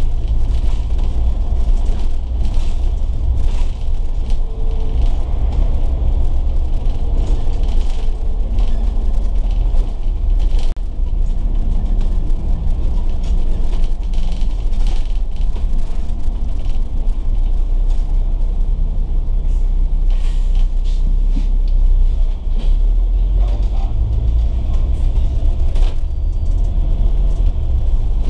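Volvo B9TL double-decker bus under way: a steady low rumble of its six-cylinder diesel engine and road noise, the engine note shifting as the bus changes speed, with scattered light rattles.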